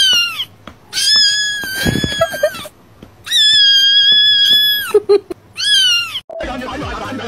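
A cat meowing four times in high, drawn-out calls: a short one, two long level ones, then a short falling one. Music comes in near the end.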